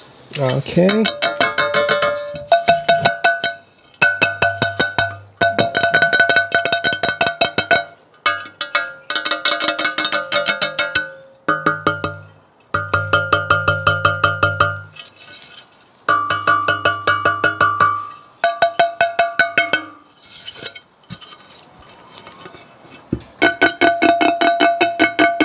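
A Baccarat iconiX 32 cm stainless steel chef pan tapped with the fingertips in quick runs of taps, about a dozen runs, each leaving the pan ringing with clear, steady metallic tones.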